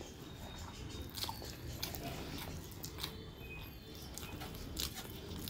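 Close-miked chewing of a mouthful of rice and vegetables by hand, with a few short sharp mouth clicks spaced through it, over a steady low hum.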